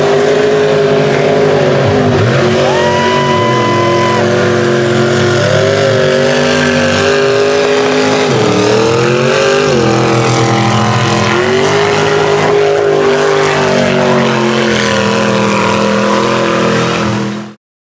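Mud truck engines running at full throttle, revving up and down as the trucks plow through a mud pit. A steady high-pitched tone sounds for about a second and a half a few seconds in, and the sound cuts off suddenly near the end.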